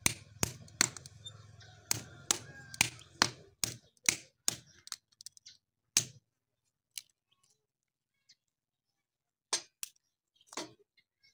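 Sharp knocks of a metal tool striking the wooden block screwed to a cow's hoof, about two to three a second for the first four seconds or so, then a few scattered knocks.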